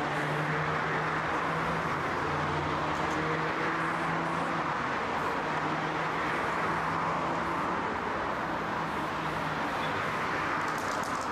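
Steady traffic noise, a constant hiss with a low engine hum that breaks off and returns a few times.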